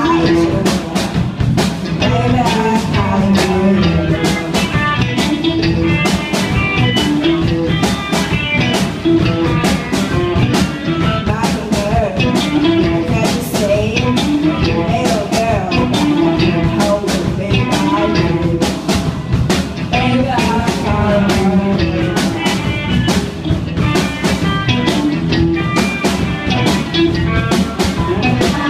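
Live rock band playing a blues-rock song: two electric guitars over a drum kit keeping a steady beat, with singing.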